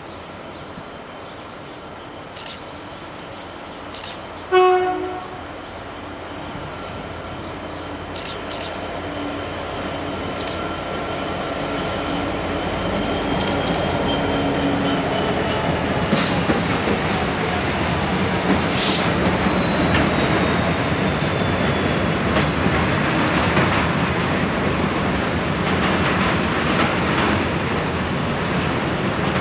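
Class 66 diesel-electric freight locomotive approaching and passing close by, with one short horn blast about four and a half seconds in. The engine note grows louder and drops in pitch as the locomotive goes by, then a long train of container wagons rolls past with steady wheel-on-rail rumble and occasional sharp clacks over rail joints.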